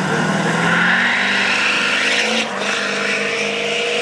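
Turbo-diesel pickup launching at full throttle on a dirt drag strip: the engine revs up with a rising turbo whistle, then briefly drops about two and a half seconds in before pulling on down the track.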